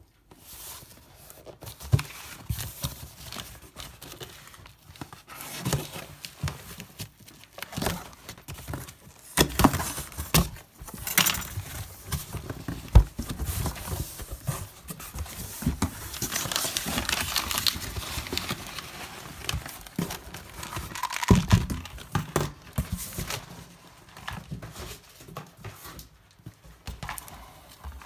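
Cardboard shipping box being opened and unpacked by hand: tearing, rustling and crinkling of cardboard and packing material, with scattered knocks as items are handled.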